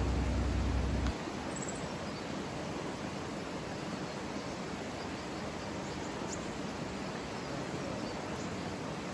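Steady rushing of a shallow river flowing over rocks. A low hum underneath cuts off about a second in.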